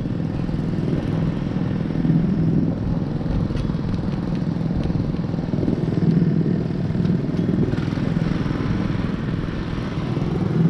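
Rotax 125 two-stroke kart engine idling steadily, heard close up from the kart itself while it sits stationary.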